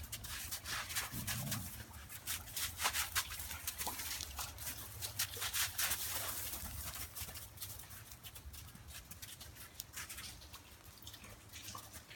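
Dalmatians' paws crunching and scuffing through a layer of fresh hail as the dogs pounce, dig and play, a busy run of short crackles that thins out near the end.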